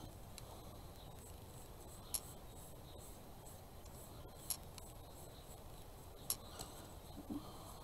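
Faint scratchy rubbing of a paintbrush working paint onto bare wood, with three light, sharp clicks about two seconds apart.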